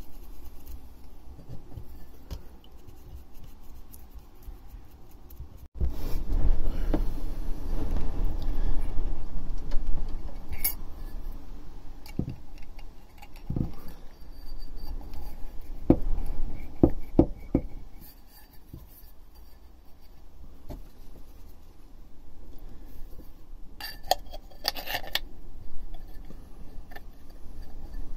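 Metal parts of a gearbox oil strainer and its housing being handled: scattered light clinks and rattles, with a quick run of jangling near the end. Low rubbing and handling noise, loudest from about six to eleven seconds in.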